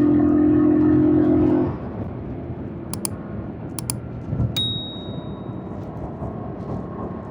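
Yamaha MT-07's parallel-twin engine running steadily, then dropping away sharply just under two seconds in to a low rumble. A few sharp clicks follow, then a short high beep.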